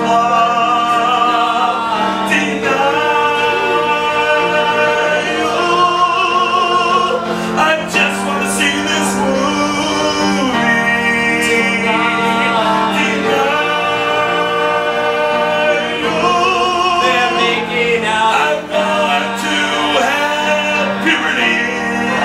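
Live music with singing: long sung notes held over musical accompaniment, changing every few seconds.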